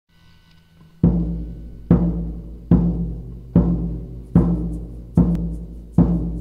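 Opening of a rock song: a low, ringing drum hit struck in a steady beat about every 0.8 seconds, starting about a second in, each hit dying away before the next. A faint held tone sits under the first second.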